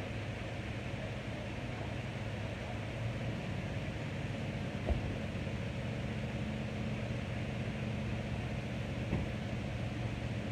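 Vehicles on a wet street: engines running with a steady hum and tyres hissing on wet asphalt, with a faint knock about halfway through.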